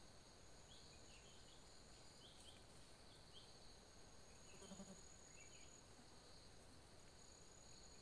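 Faint, steady trilling of insects, with a few faint high chirps in the first half and one short, low animal call a little past halfway.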